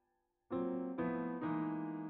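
Background piano music: after a brief silence, three chords are struck about half a second apart and ring on.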